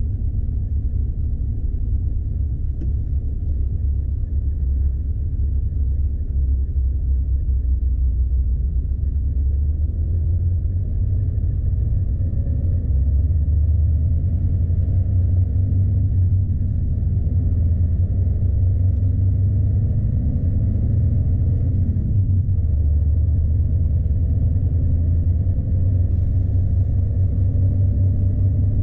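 Heavy truck's diesel engine running steadily under load, with road rumble, heard from inside the cab. The engine note wavers slightly up and down.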